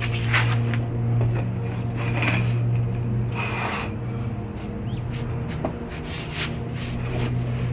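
A masonry hand tool scraping on mortar and stone in about ten irregular strokes, one of them longer about three and a half seconds in, over a steady low hum.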